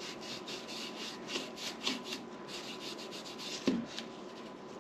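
Foam brush rubbing acrylic craft paint onto the bare wooden bars of a canvas frame in quick repeated strokes, about four a second. There is a single knock about three-quarters of the way through.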